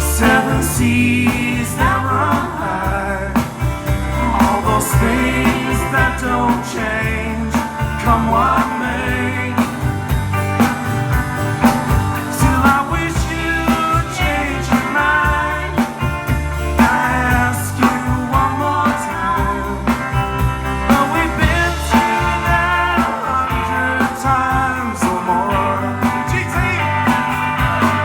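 Live band playing a country-rock song: guitars over bass and a steady drum beat, with a wavering lead melody line on top.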